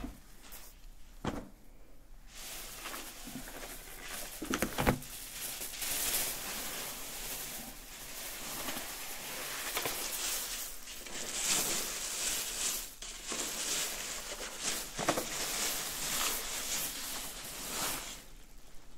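Takeout food packaging being handled: plastic and paper rustling and crinkling almost continuously as the order is unpacked, with two knocks of items set down on the table in the first five seconds.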